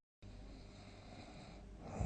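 A sleeping person breathing faintly between snores after a brief total dropout, then a loud snore starting to build near the end.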